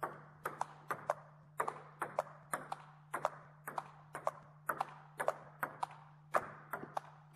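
Table tennis ball clicking sharply off the racket and the table in a steady run of backhand push strokes, about two strokes a second, each hit closely followed by a bounce. A faint steady low hum runs underneath.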